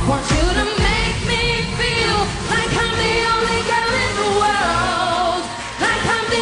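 A woman singing a pop song live into a microphone over a loud pop band backing with a steady beat.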